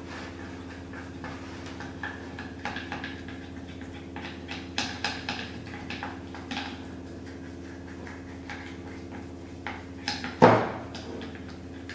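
Kitchen handling sounds while food is prepared: scattered light clinks and clicks of dishes and utensils over a steady hum, then one loud knock about ten seconds in.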